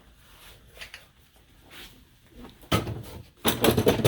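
Clunks and rattles of tools being handled: a short clatter a little before the end, then a louder run of knocks lasting about a second.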